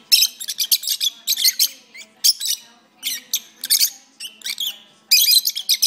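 A pair of rosy-faced lovebirds chattering: rapid runs of high, shrill chirps and squeaks in quick bursts, with brief pauses about three and five seconds in.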